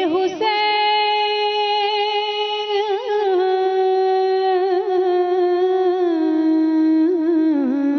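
A woman singing a Punjabi naat unaccompanied, drawing out one long held note with small ornamental turns, which steps down in pitch about six seconds in and again near the end.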